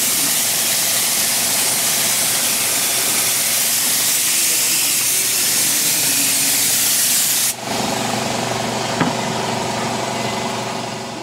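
Tornador compressed-air cleaning gun hissing steadily as it sprays cleaner over the engine bay; about three-quarters of the way through the spray cuts off suddenly, leaving the car's engine idling, with a single click a second or so later.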